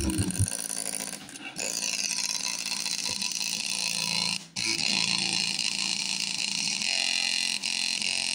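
Cheap LED party speaker with its cover off, its exposed woofer cone pumping hard while it plays a harsh, noisy sound with no clear tune. The sound cuts out briefly about a second in and again around four and a half seconds, then carries on.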